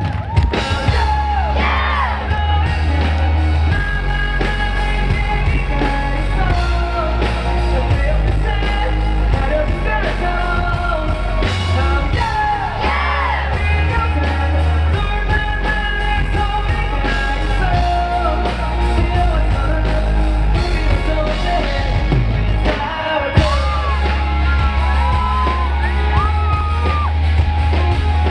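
Live rock band playing a song, with a heavy bass line and a singer's vocals, including a few yelled, wavering vocal runs.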